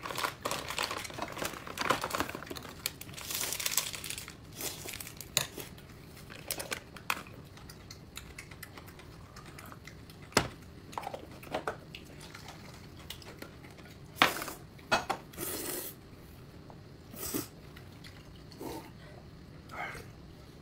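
Crinkling and rustling at a meal table, dense for the first few seconds, then scattered sharp clicks and clinks of dishes and tableware.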